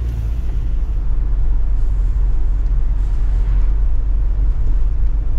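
Camper van driving along a town street, heard from inside the cab: a steady low rumble of engine and road noise.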